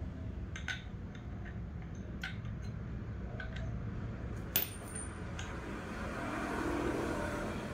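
Small metal parts of a paintball regulator clinking and tapping against each other a handful of times as they are handled, one sharper clink about halfway with a brief high ring after it, over a steady low hum.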